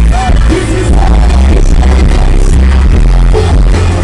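Live rap music played loud through a concert PA, with a heavy bass beat and a vocal line over it.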